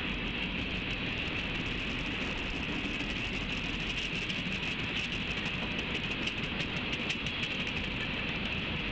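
Freight train of tank cars rolling past, its steel wheels making a steady rail noise with many irregular clicks over the rails.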